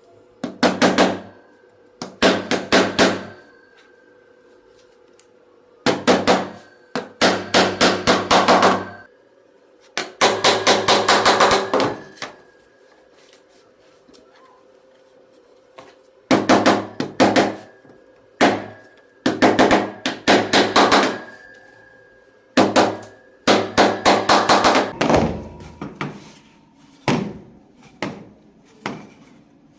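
Hammer tapping rapidly in short bursts of many quick strikes, with pauses between, as wooden pieces are knocked together; lighter, sparser taps near the end.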